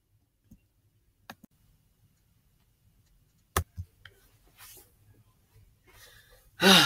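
A few sharp clicks and knocks from a Chromebook being handled and clicked, the loudest a double click about three and a half seconds in, followed by soft rustling. A voice starts right at the end.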